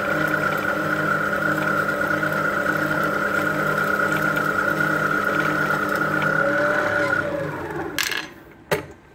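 Motorised HD14C heavy-duty line winder running steadily with a constant whine as it spools fishing line onto a spinning reel. It winds down and stops about seven seconds in, followed by a few sharp clicks.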